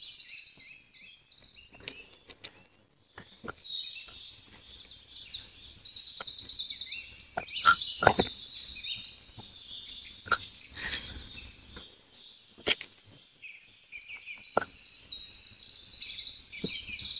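Small birds chirping and trilling in fast runs of repeated high notes, with a scatter of sharp light taps and clicks.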